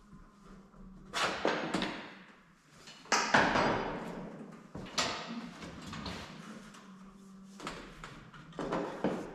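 A string of knocks and clunks with short ringing tails: a quick cluster about a second in, then single ones every couple of seconds, typical of metal parts being handled and knocked together.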